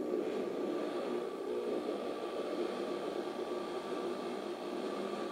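Oyster Theremin, a theremin whose four galvanized oyster-shell antennas each control a separate oscillator, all mixed together, sounding a steady electronic drone of several held tones: one high tone above a dense cluster of lower ones, set by hands moving near the shells.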